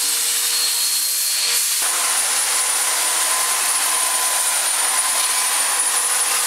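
An angle grinder with a carving disc grinding out the hollow of a log. About two seconds in it gives way to a chainsaw running steadily with a high whine as its bar cuts down into the top of a wooden block.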